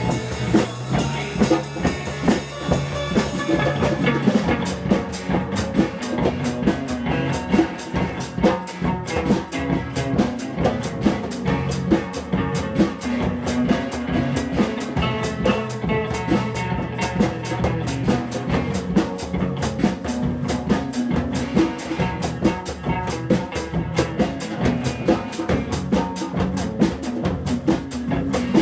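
Band jamming, instrumental: a drum kit keeps a busy, steady beat over held low instrument notes.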